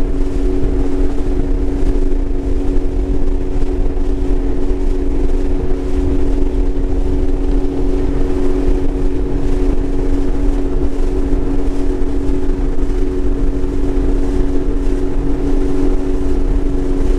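Sea-Doo personal watercraft (jet ski) running flat out at a steady cruising speed, its engine drone holding one pitch throughout over a heavy low rumble.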